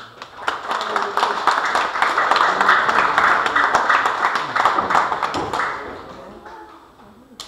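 Audience applauding: dense clapping that starts about half a second in, holds for about five seconds, then dies away.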